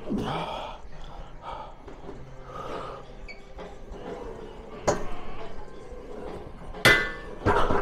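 Gym equipment clanking: three sharp metal knocks, about five seconds in, near the end with a brief ring, and again just after it, over a low background of room noise.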